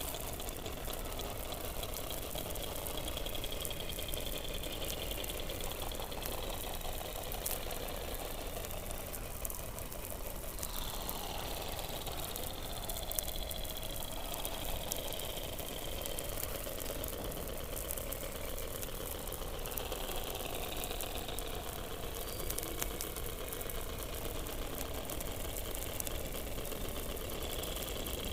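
Underwater sound from a hydrophone below Antarctic ice: long, wavering, whistle-like calls overlapping at a high and a lower pitch, over a steady low rumble and constant fine crackling clicks.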